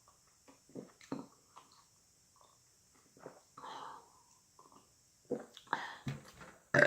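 A person eating close to the microphone: soft chewing with wet mouth clicks and lip smacks, a breath about halfway, and louder mouth noises near the end.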